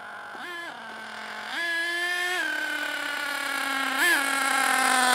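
Radio-controlled truck's motor revving in short throttle blips: a brief one early, a longer one about a second and a half in, and a quick one near the end, dropping back to a steady lower note between them. It grows louder as the truck comes closer.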